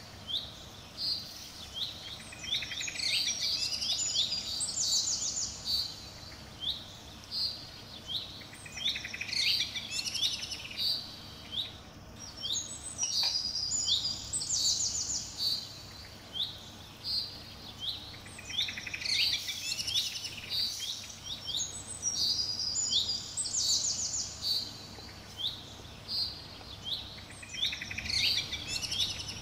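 Small birds singing: clusters of quick high chirps and trills, with the same pattern of calls coming back about every ten seconds, over a faint steady low hum.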